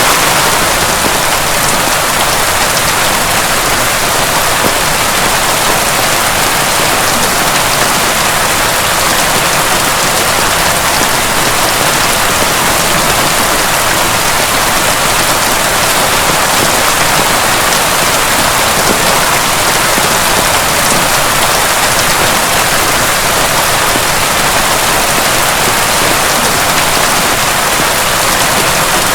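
Heavy rain falling steadily: a dense, even hiss with fine scattered drop ticks, loud and unchanging, with no thunder.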